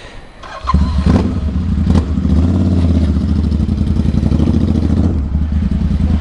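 Royal Enfield Interceptor 650 parallel-twin, fitted with an 865 cc big-bore kit and an Atom full-system exhaust, coming in abruptly less than a second in, then running at low revs with a loud, deep, fast-pulsing exhaust beat.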